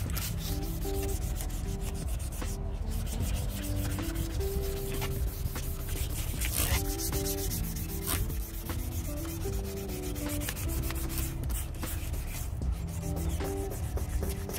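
A polycarbonate headlight lens being sanded with 600-grit abrasive to cut away oxidation haze: a continuous, rough rubbing and scraping made of many closely spaced strokes.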